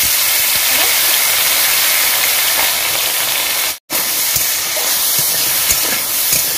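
Sliced elephant apple frying in hot oil in an iron kadai: loud, steady sizzling, with the hiss cutting out for a moment about four seconds in. In the later part a metal spatula stirring the pieces clicks and scrapes against the pan.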